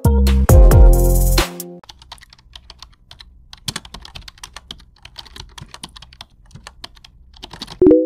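Loud electronic music with heavy bass stops about two seconds in, followed by a keyboard-typing sound effect: many soft, irregular clicks. A short loud tone sounds just before the end.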